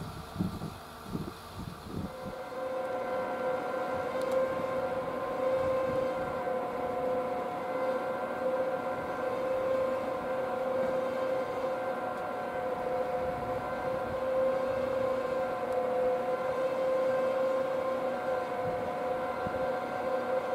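A steady humming whine from a machine running at constant speed, several tones held at one pitch, setting in about two seconds in after a short, uneven low rumble.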